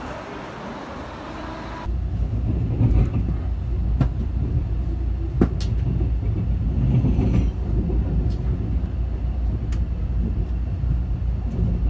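A short stretch of station hubbub, then, about two seconds in, the steady low rumble of a moving passenger train heard from inside the carriage, with a few sharp clicks scattered through it.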